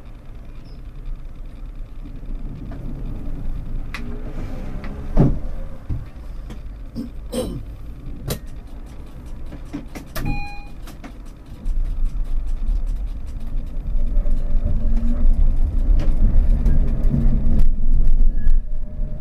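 Berlin tram heard from inside the driver's cab: it stands with a low hum and occasional clicks, then about twelve seconds in it moves off, the motor and wheel rumble growing louder as it gathers speed over the rails and points.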